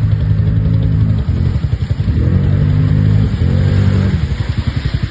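Vehicle engine revving in several surges, rising and falling in pitch, then dropping to a lower, evenly pulsing run near the end.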